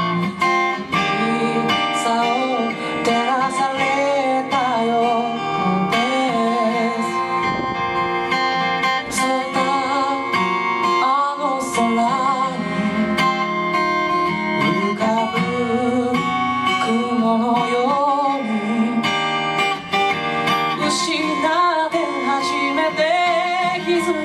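Live music: a strummed acoustic guitar with a wavering, singing melody line above it.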